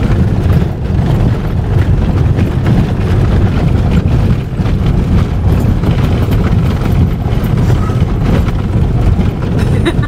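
Loud, steady low rumble of a small, low car driving over a rough road, heard inside the cabin as the body shakes, with scattered light knocks.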